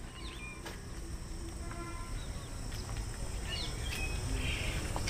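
Quiet rural outdoor ambience: a steady low rumble, a faint high insect drone, and a few short bird chirps.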